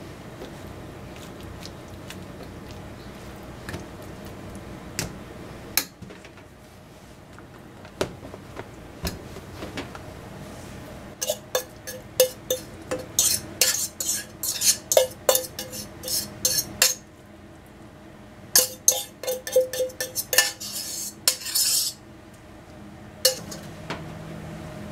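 Utensils scraping and clinking against bowls as a mayonnaise salad is scooped from one bowl into another. A few scattered clicks come first, then two runs of quick scrapes and taps, each strike with a short ring, about halfway through and again near the end.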